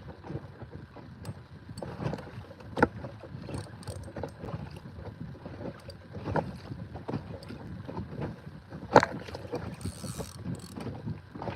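Water sloshing and slapping against a kayak hull with wind on the microphone, scattered small knocks, and two sharper knocks, about 3 seconds and 9 seconds in.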